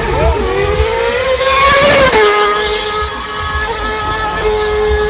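2011 Williams FW33 Formula 1 car's Cosworth V8 passing at high revs. Its note rises to the loudest point about two seconds in, drops sharply as the car goes by, then holds a steady high note as it pulls away.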